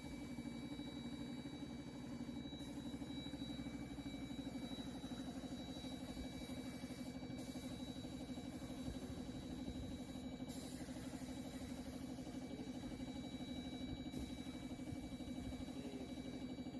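Paint sprayer's motor running with a steady drone and a thin high whine while cabinets are sprayed.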